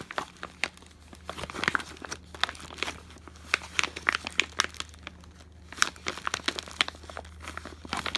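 Clear plastic zip bag crinkling in quick, irregular crackles as it is handled, over a faint steady low hum.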